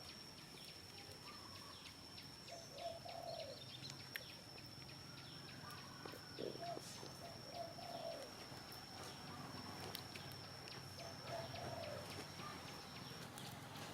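Faint animal calls: about four short calls that rise and fall in pitch, spaced a few seconds apart, over a steady thin high tone that stops near the end, with a few faint clicks.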